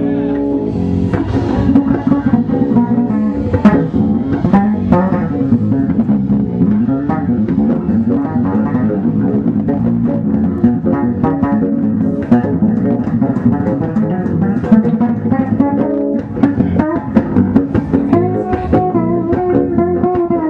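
LiuCas electric bass played through a Markbass amplifier: an improvised run of plucked notes, with a few longer held notes near the end.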